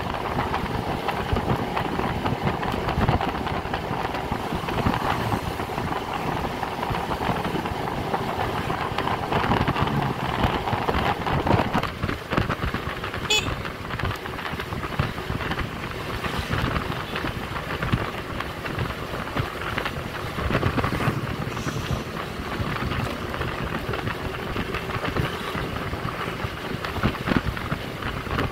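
Ride on a Honda motor scooter: the engine running steadily under wind and road noise buffeting the microphone. A short high-pitched tone sounds about halfway through.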